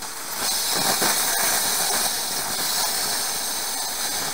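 Plasma cutter with an IPT-60 torch cutting through hardened steel bed-frame angle iron: a steady, loud hiss of the air-driven arc that starts a moment in.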